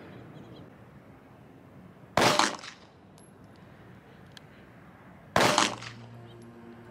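Two shots from a Walther PPS subcompact pistol, a little over three seconds apart, each a sharp crack with a brief ring-out.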